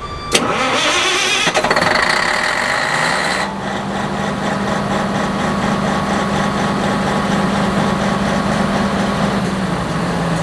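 Perkins 2806 six-cylinder diesel generator engine: a click, then the starter cranks it for about three seconds before it catches and runs steadily, easing to a slightly lower speed near the end. It starts promptly, the sign that the replaced blown fuse on the ECM supply was the cause of the hard starting.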